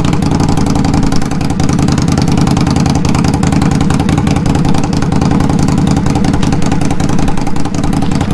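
2021 Indian Scout Bobber's V-twin idling steadily through York GP-style shorty slip-on mufflers, moments after starting. Loud, measured at 85 decibels at about 20 feet.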